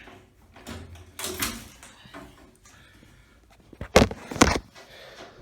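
Handling noise: a short rustle and clatter, then two loud sharp knocks about half a second apart, like something hard being set down or bumped.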